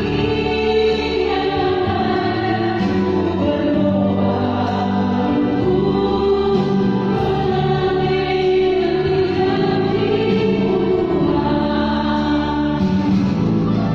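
Virtual choir singing in several parts, holding long chords over low sustained bass notes that change every second or two.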